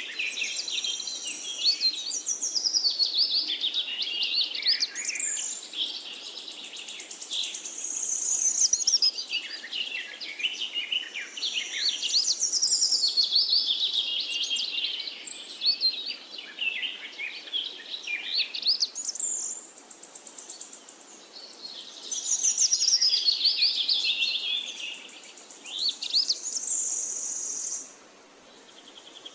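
Songbirds chirping and singing, with phrases of quick notes sliding down in pitch that repeat every few seconds. A steady high-pitched buzz comes and goes, loudest near the end.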